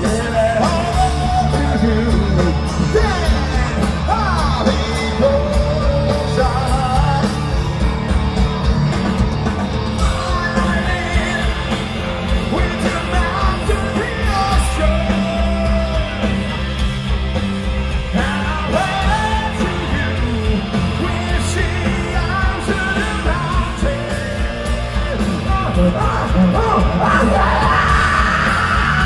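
Loud live band music: a lead voice singing and yelling over drums and the band.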